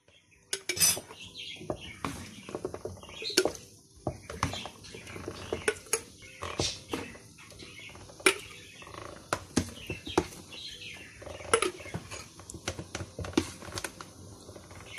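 Cracked green olives scooped by hand into a glass jar, knocking and clinking against the glass and the plastic tray in irregular clicks.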